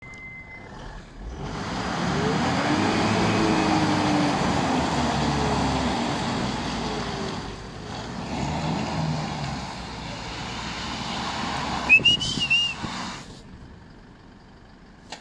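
Toyota Hilux and Land Rover Defender pulling against each other under load: engines revving, with tyres spinning on loose muddy gravel, easing briefly about halfway. Near the end come a few sharp knocks and a short high warbling squeal, then the engines drop away.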